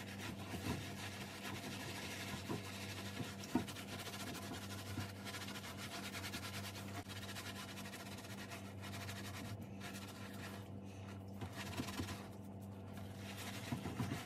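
Soapy loofah scrubbing the wet fabric bib of a fencing mask: soft, quick rubbing and scratching strokes, with a low steady hum underneath.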